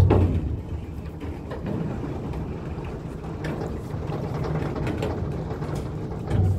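Small ferry's engine running with a steady low rumble as it comes up to the slipway, with scattered clicks and rattles. A sharp knock right at the start, and the engine grows louder near the end.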